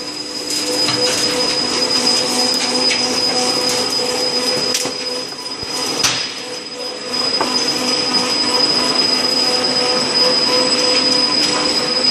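Block-house siding moulding machine running, a steady loud machine noise with a shrill high whine and a lower hum as it works. It dips briefly about halfway through, with a sharp knock, then picks up again.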